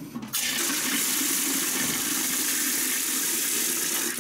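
Water gushing from a freshly installed brass hose bib into a galvanized metal watering can, a steady rushing hiss that starts a moment in and cuts off abruptly at the end. The flow shows the new PVC water line fed from the well is working.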